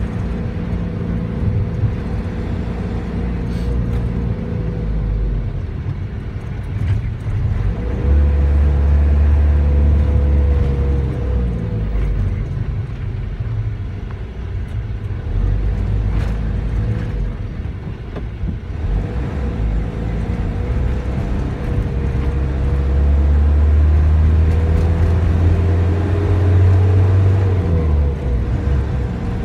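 Vehicle cabin noise while driving in traffic: a steady low engine and road rumble with a thin steady whine, the rumble swelling louder for a few seconds about a quarter of the way in and again for longer near the end.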